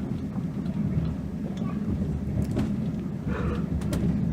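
Steady low rumble of a moving vehicle heard from inside, with a few faint clicks and knocks.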